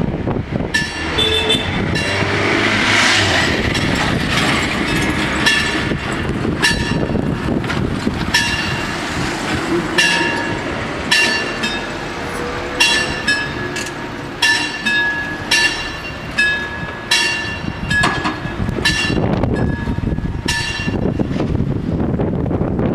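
Warning bells of an FS 64-type level crossing ringing, with single metallic strikes about once a second in an uneven rhythm. They signal that the crossing is closing and the barriers are coming down for an approaching train.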